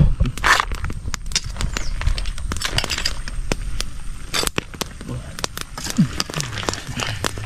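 Wood fire crackling with sharp irregular pops under a wok of boiling crabs and shrimp, mixed with clicks of a metal ladle against the wok and plate.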